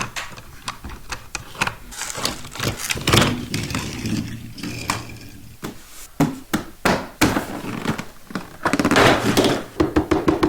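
Plastic toy track pieces and packaging being handled: a busy run of clicks, taps and knocks with crinkly rustling between them, growing denser near the end.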